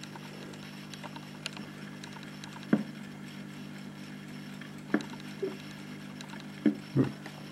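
Steady low hum and faint crackly ticks from a 1964 Astor G10L portable phonograph with no music playing. A few short knocks come about 3, 5 and 7 seconds in.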